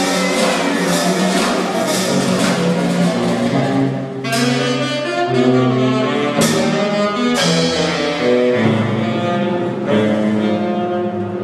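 Improvised jazz from saxophone, drums and a bowed five-string electric bass violin. The strings hold long notes over a low sustained line. Light percussion strikes fall about twice a second in the first few seconds, with a few sharp strikes in the middle.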